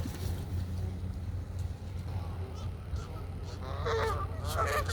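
Geese honking: several calls in quick succession starting near the end, over a steady low rumble.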